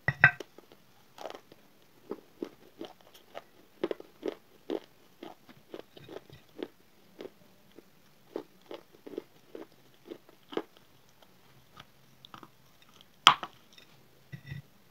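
Close-up bites and chewing of a slate bar. A sharp crack as a piece snaps off just after the start, then a long run of gritty crunches, two or three a second, and a second loud snapping bite near the end.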